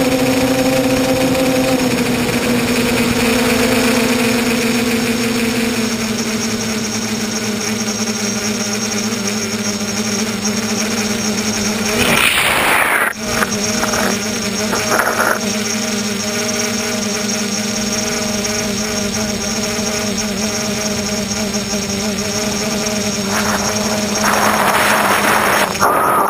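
Tricopter's brushless motors and propellers, heard from the onboard camera, droning steadily in flight. The pitch eases down a little early on, and louder rushes of air come about twelve seconds in and again near the end.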